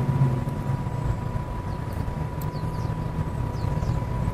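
Steady low engine hum with a thin, steady high tone through it, and a few faint high chirps about two and a half and three and a half seconds in.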